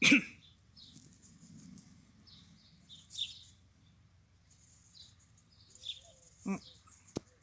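Small birds chirping intermittently outdoors, with a short louder pitched sound at the start and another about six and a half seconds in, and a sharp click near the end.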